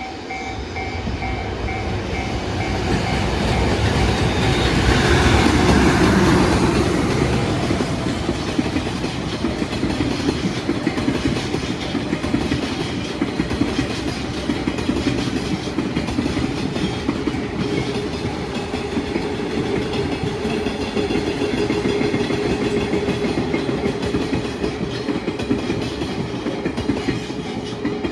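JR Freight EH200 electric locomotive passing close by, loudest about five seconds in, followed by a long freight train of tank wagons, container flatcars and a Shiki 801 heavy-load car rolling past with wheels clattering over the rail joints. A level crossing alarm rings in repeating tones at the start.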